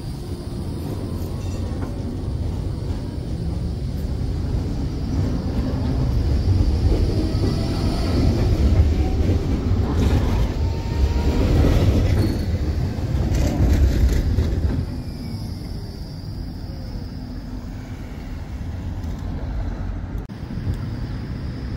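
Tram running on its rails with a steady rumble that grows louder toward the middle and drops off sharply about fifteen seconds in.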